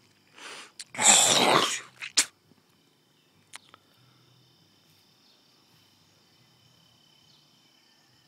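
A single loud, breathy burst of noise close to the microphone about a second in, lasting under a second, with a few sharp clicks around it. Crickets chirp steadily behind it.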